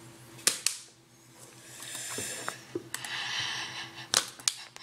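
A few sharp taps on computer keyboard keys, two about half a second in and a quick cluster near the end, with two breathy exhalations in between.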